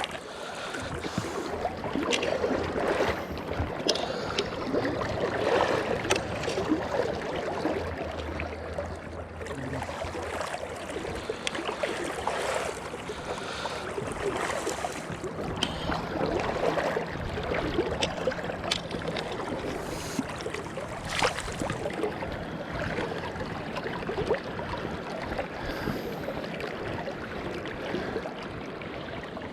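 Water rushing and splashing around a fishing boat on a river, with scattered knocks and handling noises and a faint low steady hum.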